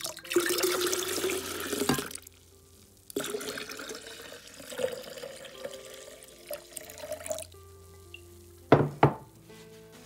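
Water poured from a container into a glass pitcher of lemon juice and sugar, in two pours: one for about the first two seconds, a second from about three seconds in, its pitch rising slightly as the pitcher fills. Two sharp knocks follow near the end.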